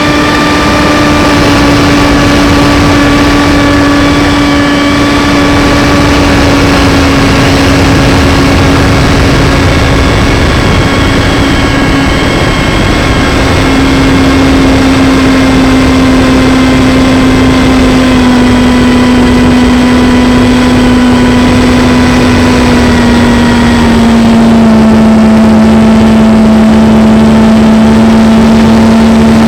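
RC plane's motor and propeller running steadily in flight, a loud drone over rushing wind noise, its pitch easing down in small steps about halfway through and again near the end as the throttle is lowered.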